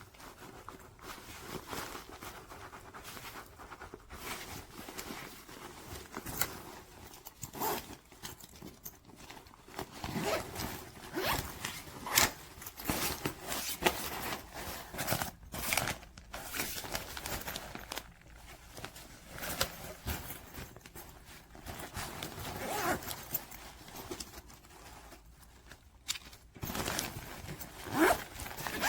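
Zippers on a fabric cabin backpack being drawn open and shut several times, with handling knocks and fabric rustling in between.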